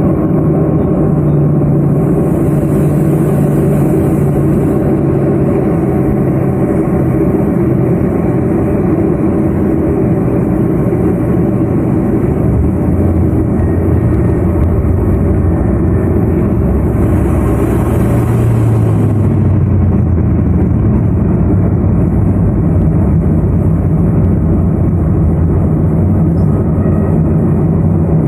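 Twin turboprop engines and propellers of a Let L-410 Turbolet droning steadily, heard from the cabin. About 17 s in, the propeller tone drops slightly in pitch as power changes.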